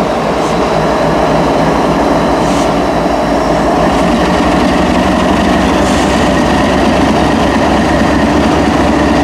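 Train passing at close range: a loud, steady rumble and rattle of wheels rolling over the rails.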